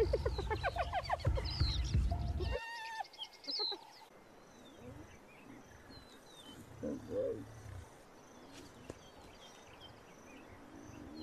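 Spotted hyenas calling as they squabble over a carcass: a burst of loud, wavering, pitch-bending calls in the first couple of seconds, one more short call soon after, then a few fainter calls about halfway through.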